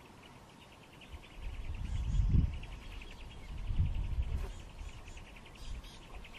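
An insect chirring in rapid, evenly spaced pulses. Two swells of low rumble come about two and four seconds in and are louder than the insect.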